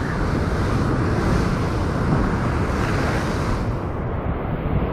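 Wind buffeting the microphone over heavy surf breaking and washing on the rocks: a steady rushing noise with a low rumble.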